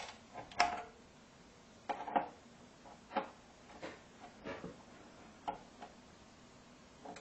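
Irregular light clicks and knocks from hands working at the underside of an amplifier's metal chassis and circuit board, about ten in all, the sharpest about half a second in and near two seconds.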